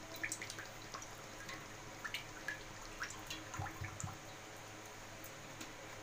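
Cooking oil poured from a plastic bottle into a hot kadai: faint splashing with scattered small ticks, stopping about four seconds in.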